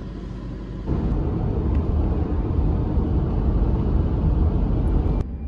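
Steady road and tyre rumble of a car driving at highway speed, heard from inside the cabin. It starts abruptly, louder, about a second in after a quieter hum, and cuts off shortly before the end.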